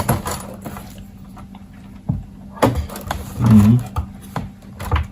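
Handling noise from wiring work: scattered small clicks and knocks of wires and connectors being handled, with a brief low pitched sound about three and a half seconds in and a faint steady hum underneath.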